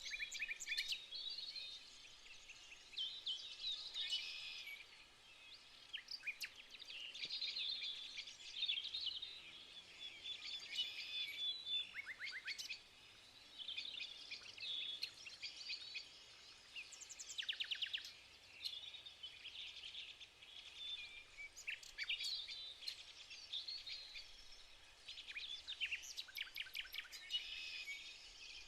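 Several songbirds singing and chirping at once, overlapping twitters broken by quick trills of rapidly repeated notes.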